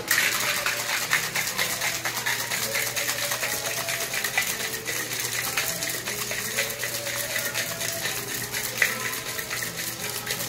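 Ice cubes rattling rapidly and continuously inside a stainless-steel cocktail shaker, shaken hard to whip the egg white of a pisco sour into foam.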